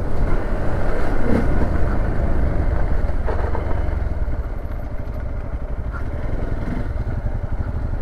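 Hero XPulse 200's single-cylinder engine running steadily as the motorcycle is ridden, easing a little about halfway through.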